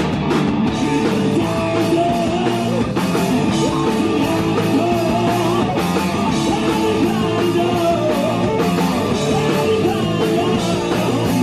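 Rock band playing loud punk-style rock: distorted electric guitars, bass and drums with a singer. The song starts suddenly on a full-band hit.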